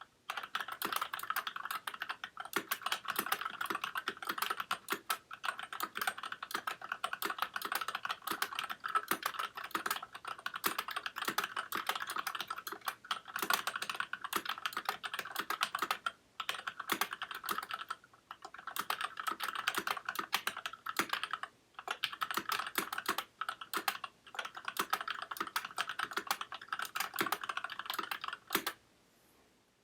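Fast, continuous typing on a Varmilo VA68M mechanical keyboard with linear Gateron Red switches and DSA-profile keycaps, broken by a few short pauses. The typing stops shortly before the end.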